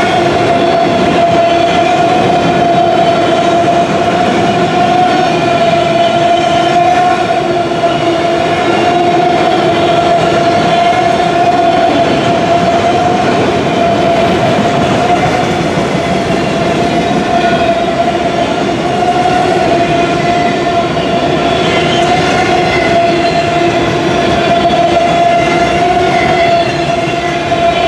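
Freight train of auto rack cars rolling steadily past, the wheels running over the rails. A steady, slightly wavering tone with overtones is held above the rolling noise.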